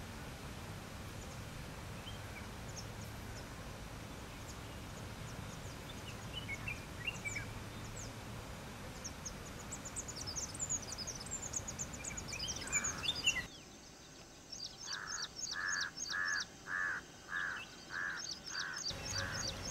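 Small songbirds calling: thin high chirps and short whistled notes over a steady background hiss. About two-thirds through, after an abrupt change, come a run of about eight evenly spaced call notes, a little over two a second, with high chirping above them.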